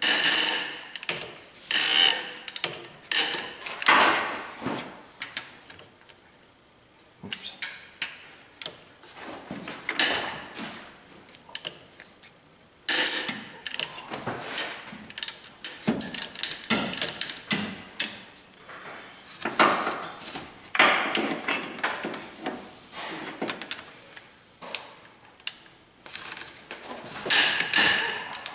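Hand ratchet clicking in repeated bursts as it is swung back and forth to loosen and back out the cylinder head bolts on a Subaru EJ253 flat-four, with short pauses between bolts.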